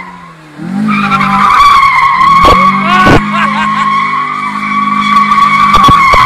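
FSO Polonez's tyres squealing loudly and steadily as the car drifts around on asphalt, the engine running under load beneath. The squeal swells in about half a second in, and a few sharp knocks come midway and near the end.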